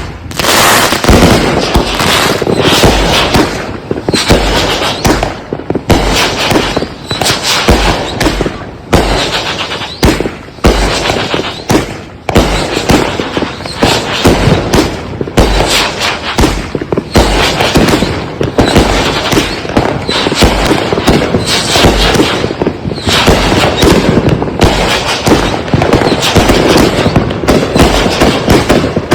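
Consumer firework cakes firing a rapid, unbroken string of loud bangs, several a second, with crackle between them.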